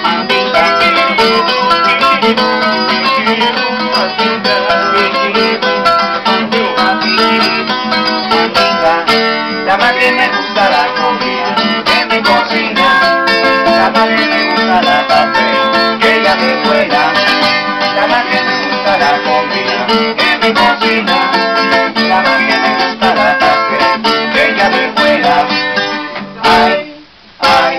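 Two acoustic guitars playing a lively tune together, with quick picked and strummed notes. Near the end the playing stops briefly, then picks up again.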